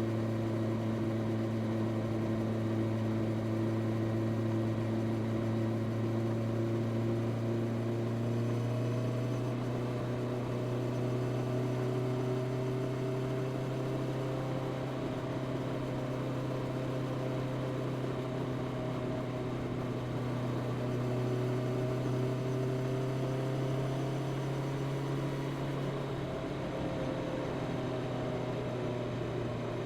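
Honda CB650R's inline-four engine with its stock exhaust, running steadily at a cruise. The engine note shifts slightly about a third of the way in and drops a little near the end.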